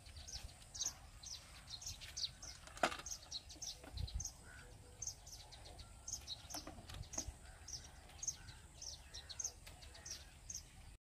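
Small birds chirping: many short, high chirps in quick succession over a low steady background rumble, with a sharp click about three seconds in. The sound cuts off just before the end.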